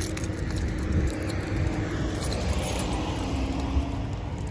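Steady low rumble of walking outdoors on asphalt, with light metallic jingling from the dog leash's clip and harness hardware as the dog walks at heel.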